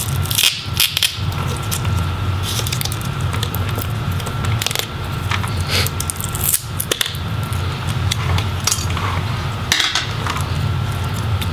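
Small clicks, taps and scrapes of fingers and a pry tool working on a laptop motherboard: the glued-on CMOS battery is pried free and connectors are unplugged. A steady low hum runs underneath.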